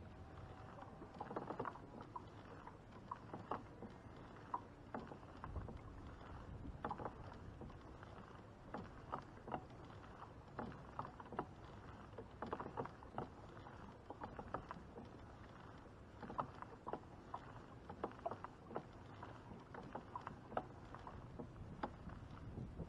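Kayak hull with small irregular taps and clicks of water slapping against it, over a faint low rumble.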